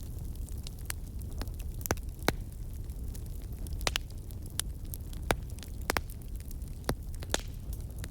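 Campfire crackling: irregular sharp pops and snaps of burning wood over a steady low rumble of the flames.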